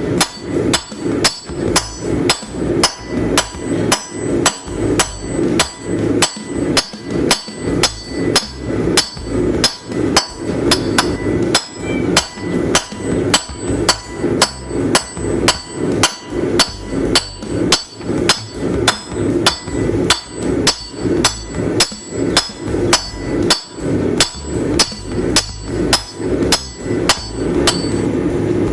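Hand hammer forging a railroad spike on an anvil: steady, even blows at about two a second, each with a bright metallic ring. The hammering stops near the end, leaving a steady rushing noise that runs under the blows throughout.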